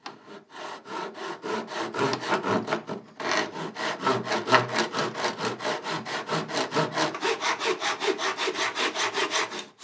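Japanese pull saw cutting through a small piece of timber held in a vise, its blade riding along a magnetic saw guide. It starts with lighter strokes, settles into quick, even strokes about three seconds in, and stops just before the end as the cut goes through.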